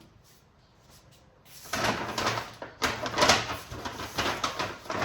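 Groceries being handled and packed away: dense rustling and clattering, with many small knocks, starting about a second and a half in after a quiet start.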